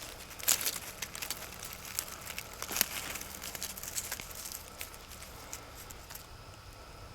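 Irregular crackling and rustling, like dry leaf litter and twigs being stepped on or handled, thinning out after about six seconds.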